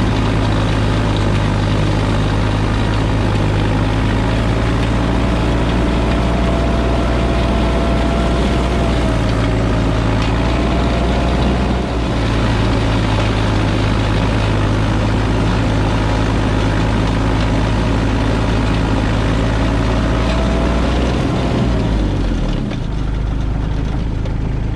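Kubota LX2610 compact tractor's three-cylinder diesel engine running steadily at working speed while driving the front snowblower. The engine note drops about 22 seconds in.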